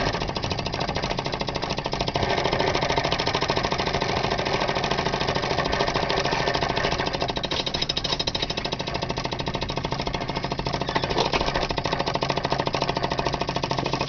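Homemade lamina-flow thermal lag engine running fast with a steady, rapid knocking rattle: its syringe piston, with no spring to stop it, hits the end of the heatsink area on every stroke.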